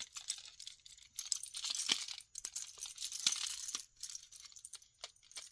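Crinkling packaging handled by hand, with light clicks and clinks of costume jewelry pieces, including acrylic earrings.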